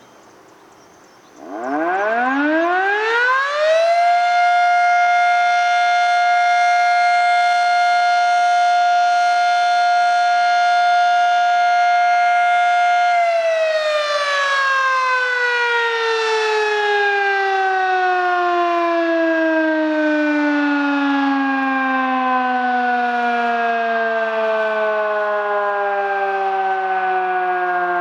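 Federal Electric Model 3 fire siren sounding a short alert test. It winds up about a second and a half in, holds one steady tone for about nine seconds, then winds slowly down, its pitch still falling at the end.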